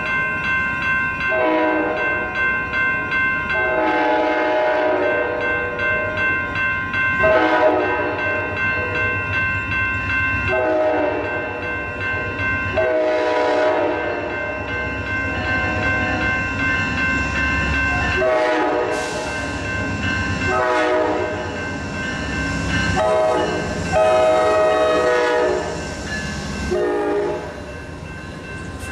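Amtrak P42DC Genesis diesel locomotive sounding its horn in about a dozen blasts, some short and some long, while a bell rings steadily. The low rumble of the engine and the passing cars swells in the middle as the train goes by.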